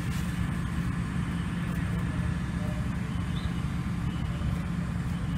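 Large vehicle engine idling: a steady low rumble with a constant hum.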